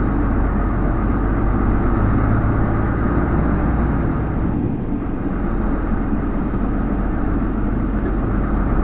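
Truck engine running steadily with road noise, with a brief dip in level about halfway through.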